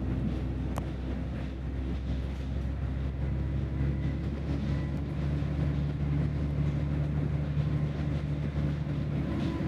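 A diesel bus's engine and drivetrain running steadily as the bus drives along, heard from on board, with a low drone and a faint whine. The engine note changes near the end.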